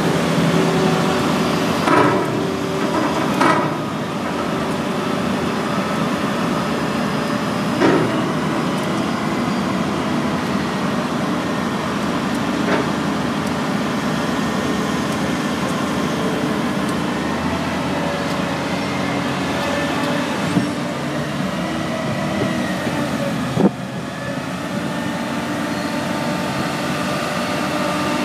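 Heavy engine of a truck-mounted crane running steadily as the crane lowers a load of big sandbags, with a few sharp knocks scattered through, the loudest near the start and again a few seconds before the end.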